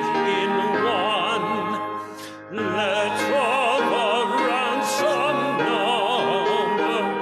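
A solo singer in an operatic, classical style, holding notes with wide vibrato over a steady instrumental accompaniment, with a short break between phrases about two seconds in.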